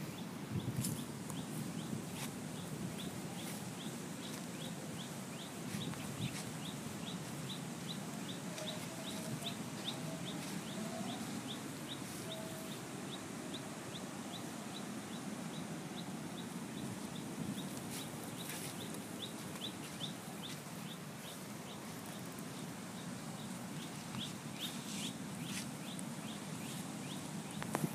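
Outdoor ambience: a steady low rumble under a high, short chirp that repeats about three times a second, with a few brief calls around the middle.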